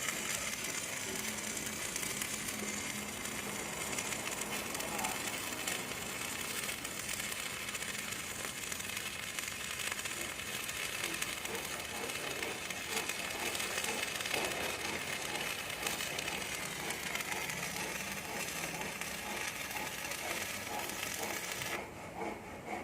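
Arc welding on a steel IWF250 wide-flange beam: the arc runs with a steady noise, then cuts off abruptly near the end as the weld stops.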